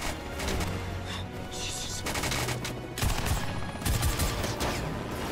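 Rapid automatic gunfire from a helicopter in a film action mix, with two heavier bangs about three and four seconds in.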